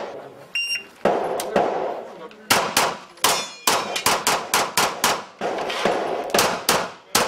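Rapid pistol fire from a 9mm Glock 17 during an IPSC course of fire: a string of sharp shots, many in quick pairs, starting about a second in.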